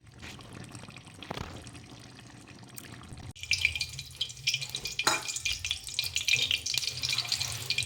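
Cooking oil heating in a pan, crackling and sizzling; the crackle gets suddenly louder and brighter about a third of the way in.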